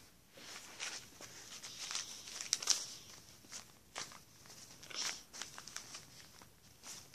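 Scattered rustling, soft taps and clicks from hands moving and handling small things close by, the loudest cluster about two and a half seconds in.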